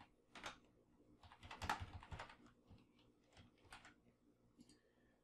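Faint typing on a computer keyboard: a quick run of keystrokes, densest around a second and a half to two seconds in, then a few scattered key clicks.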